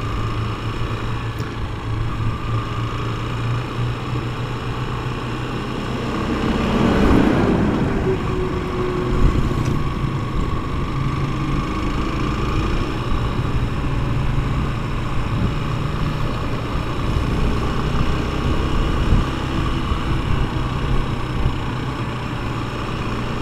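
Honda XRE 190 motorcycle's single-cylinder engine running steadily at road speed, heard from the rider's seat. About seven seconds in, a louder rush swells and fades over a couple of seconds.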